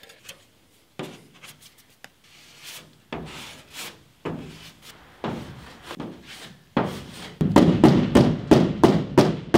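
Body filler being spread by hand over a school bus's sheet-metal panels: a series of rubbing, scraping strokes. The strokes become louder and quicker in the last couple of seconds, about three a second.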